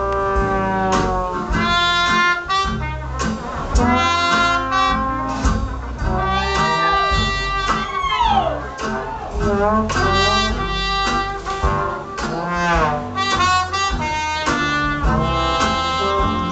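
Jazz music led by brass instruments, a run of quick melodic phrases with several notes bent downward in pitch, over a steady low rhythm.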